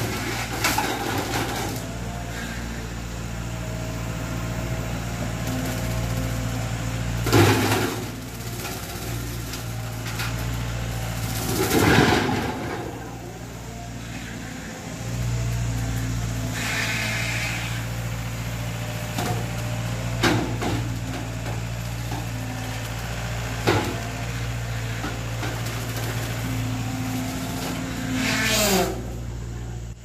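Compact track loader's diesel engine running steadily while driving a hydraulic skid steer brush cutter, with several loud bursts of crashing and shredding as the blades strike brush and wood. Near the end a pitched whine falls away.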